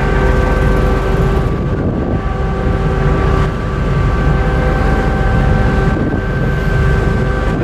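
Car ferry MV Queen of Cumberland under way, its machinery giving a steady low rumble with several constant hum tones, mixed with wind buffeting the microphone.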